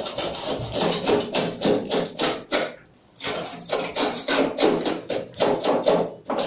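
Rapid repeated tapping strikes, about three to four a second, with a brief pause near the middle.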